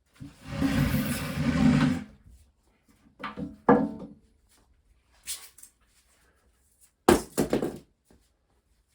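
2x2 foam-backed compressed-wood subfloor tiles being handled and fitted: a long scrape of a tile slid across the floor, a few scattered knocks, then a short burst of sharp thunks a little after seven seconds as a tile is knocked into place.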